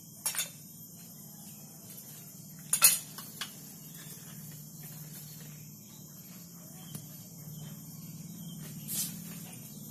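Metal parts of a dismantled refrigerator compressor clinking as they are handled and set down: a few sharp clinks, the loudest about three seconds in and another near the end. A steady low hum runs underneath.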